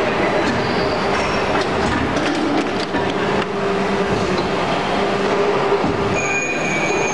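Injection moulding machine running an automatic flip-top cap mould: a steady mechanical hum with a run of sharp clicks and knocks about one to three and a half seconds in as the mould and its cap-closing mechanism cycle. A brief high whine sounds near the end.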